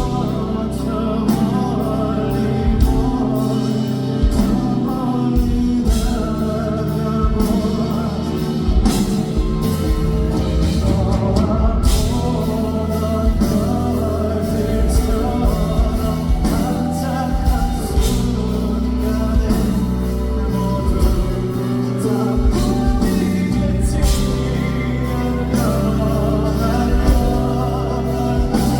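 Live band music with a voice singing over it, drums keeping a steady beat.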